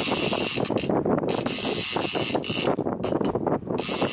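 Fishing reel clicking and ratcheting rapidly while a hooked fish pulls on the bent rod.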